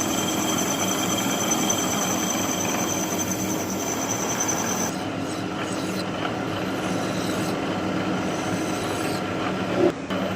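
Lathe running while a tool cuts a steel shaft: steady machining noise with a high thin whine that stops about halfway through, and a short knock near the end.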